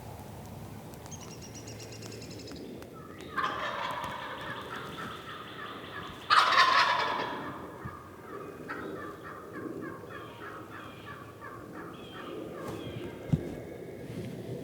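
Turkey calling: a series of rapid notes begins about three seconds in, then a loud gobble just past six seconds, followed by a run of repeated yelp-like notes. A single sharp knock comes near the end.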